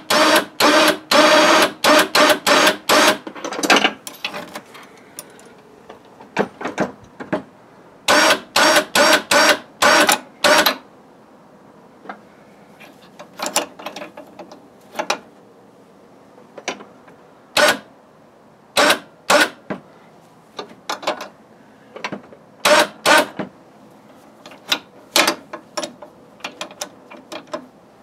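Newly installed Champion 3000 lb electric winch working, reeling in its steel cable in short on-off bursts: rapid runs of bursts at first, then fewer, spaced-out ones near the end.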